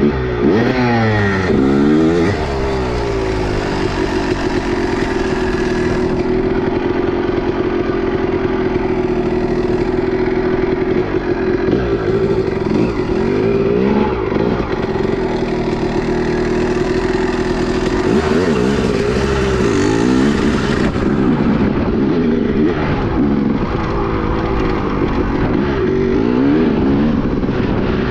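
Two-stroke motorcycle engine running hard, its pitch swooping up and down with throttle and gear changes several times and holding steady in between.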